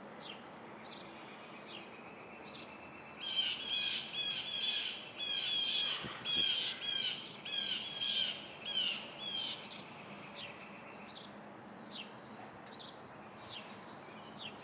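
Several blue jays giving harsh, repeated squawking calls, throwing a fit as an alarm at chickens below. The calls come thick and fast from about three to ten seconds in, with scattered single calls before and after.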